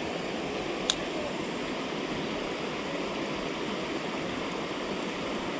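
Shallow stream running over rocks: a steady rush of flowing water, with one sharp click about a second in.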